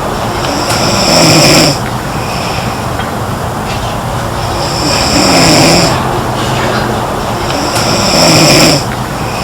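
A girl snoring: three loud snores about three and a half seconds apart, each lasting a little over a second, over a steady background noise.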